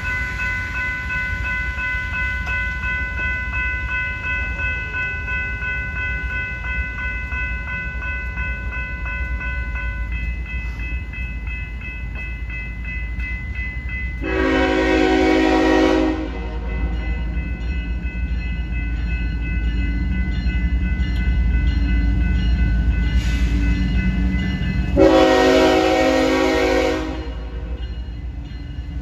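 Freight locomotive horn sounding two long blasts about ten seconds apart as the train nears the crossing. Between them, a grade-crossing warning bell rings steadily over a low rumble that grows as the locomotive approaches.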